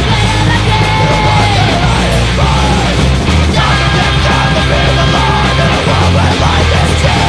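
Loud crust punk song with distorted electric guitars, drums and shouted vocals.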